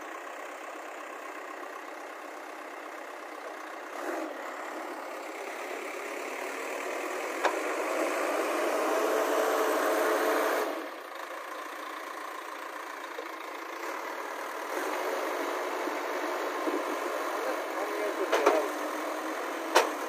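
JCB 3DX backhoe loader's diesel engine running, revving up under hydraulic load from about five seconds in as the boom and bucket lever the machine, then dropping back suddenly about halfway through. A few sharp clicks or knocks near the end.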